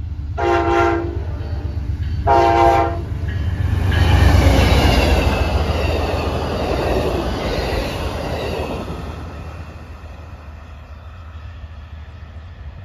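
Amtrak Texas Eagle's GE Genesis diesel locomotive sounds two short horn blasts, then the train runs past close by, loudest about four seconds in, and fades away as the Superliner cars recede.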